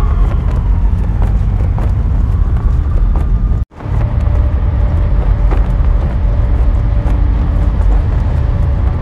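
Loud, steady low rumble of a city ambience, with the sound of distant traffic. It cuts out for a split second about four seconds in and then resumes.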